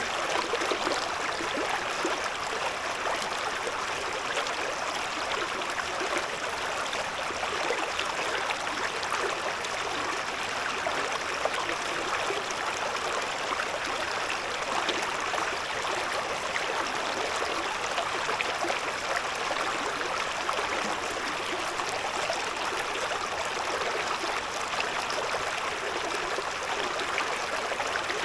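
A shallow stream babbling and gurgling steadily over stones, an even rush of water with fine splashing detail.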